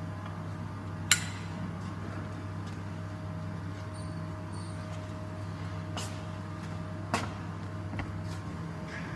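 Steady low machinery hum with a faint held tone above it, broken by a few sharp metallic knocks, the loudest about a second in and another about seven seconds in.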